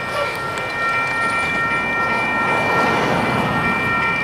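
Railroad grade-crossing warning bell ringing steadily, with a rushing noise that swells and fades about halfway through.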